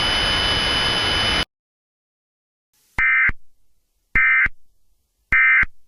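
Emergency Alert System SAME End-of-Message data bursts: three identical short, buzzy digital chirps about a second apart, signalling that the alert has ended. Before them, a steady hiss with faint steady tones cuts off abruptly about a second and a half in.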